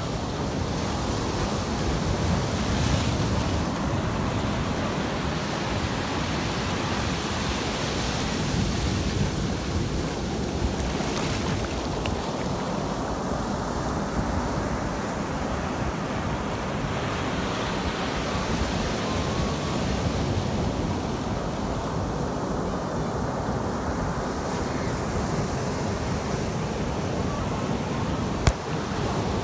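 Ocean surf breaking and washing up the sand around the rocks of a jetty, a steady rush that swells and eases with the waves. A single sharp click about a second before the end.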